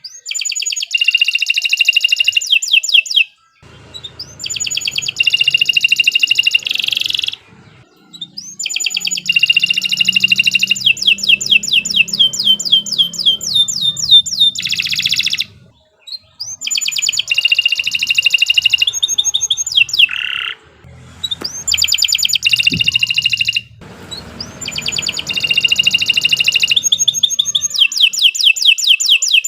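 Domestic canary singing long, loud song phrases of rapid trills and repeated notes. The phrases come one after another, separated by short pauses.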